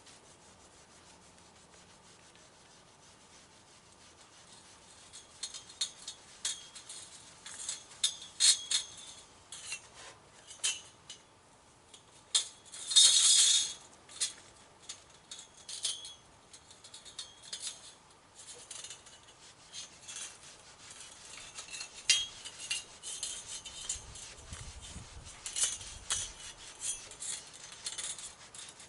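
Irregular rubbing and scraping with many scattered light clicks, and one louder scrape about 13 seconds in.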